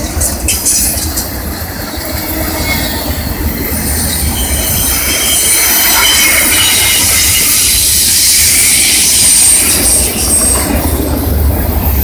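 Intermodal freight cars with trailers and double-stacked containers rolling past on curved track, with a steady rumble. From about 3 to 10 seconds in, high wheel flange squeal joins the rumble.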